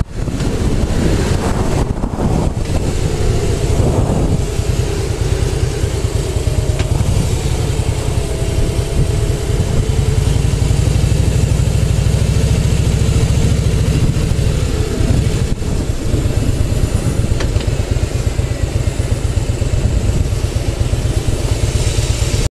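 Harley-Davidson Softail Slim's V-twin engine running while riding, its low throb steady apart from a brief pitch change about four seconds in, with wind noise on the helmet microphone.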